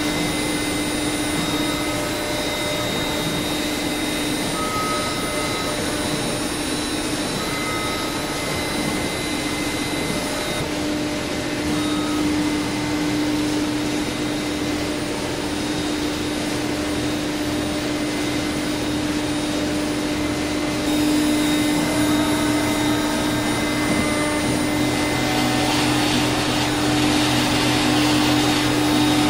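Laguna SmartShop 1 CNC router running a program, its spindle and vacuum pumps giving a steady whir with a constant hum. It gets a little louder and hissier in the last few seconds.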